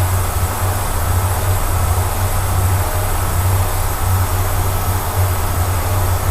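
Kearney & Trecker 307 S-12 milling machine taking a heavy, slow-feed cut through a tough alloy block. It runs as a loud, steady low hum that throbs slightly, with a hiss over it.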